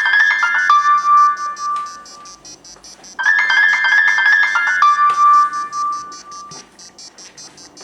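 Alarm tone of a first-generation iPhone and iPod touch: a quick run of bright chiming electronic notes ending on one held note that fades. It sounds twice, about four seconds apart, over a faint steady low buzz.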